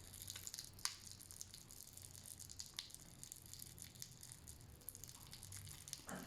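Faint crackling of popping-candy powder on a gummy candy egg: many fine, irregular tiny pops that sound like frying, with one sharper click about a second in.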